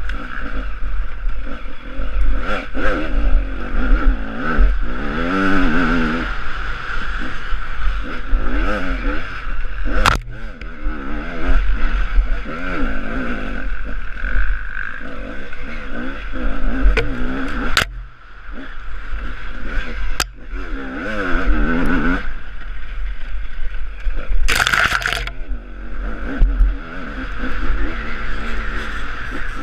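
Husaberg TE 300 two-stroke enduro motorcycle engine revving up and down over and over as it is ridden, heard through a helmet-mounted camera. A few sharp knocks and a short rush of noise late on come through over it.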